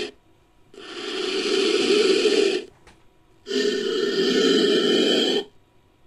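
Made-up monster vocalization sound effect for a python-sized serpent creature: two long, breathy, hiss-like calls of about two seconds each, separated by short silences. The first swells up gradually; the second starts abruptly.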